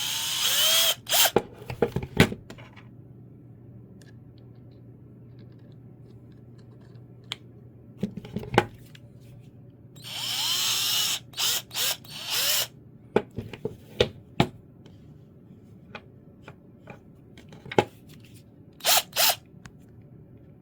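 Hyper Tough 12-volt cordless drill fitted with its right-angle attachment, run in short trigger pulls: a run of about a second at the start and again about ten seconds in, each spinning up and down in pitch, then several brief blips. Scattered clicks and knocks between the runs.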